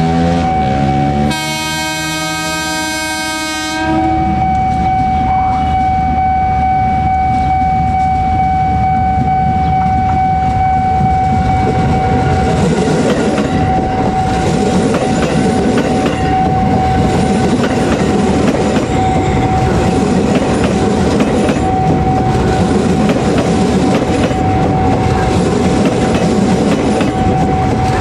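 KAI Commuter electric multiple-unit train sounding its horn once for about two and a half seconds, then rolling past close by: steady rumble and clatter of its wheels on the rails, growing fuller as the cars pass, with a steady high tone running through.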